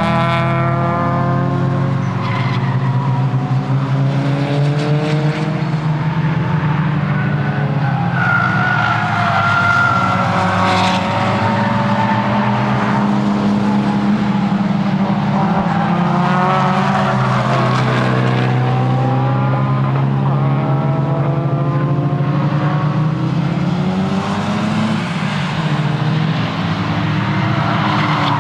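Nissan S15 Silvia's tuned four-cylinder engine being driven hard on track, its revs rising and falling again and again over a steady low drone. A tyre squeals briefly about nine seconds in.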